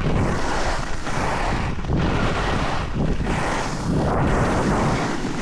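Rushing wind on the microphone and the scrape of skis turning on packed snow during a downhill run, surging and easing about once a second.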